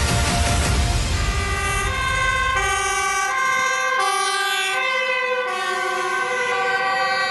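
Two-tone sirens of several emergency vehicles overlapping, each switching between a high and a low note. A deep rumble fades out about three seconds in.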